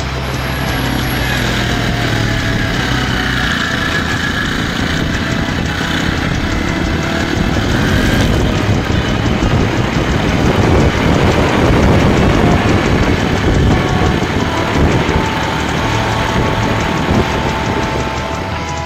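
Motorcycle engine running under way, with wind and road noise from the ride, building in the middle and easing off again towards the end.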